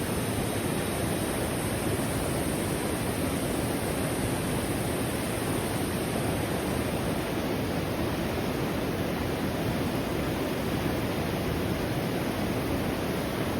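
Steady flowing water of a river, an even noise with no distinct events.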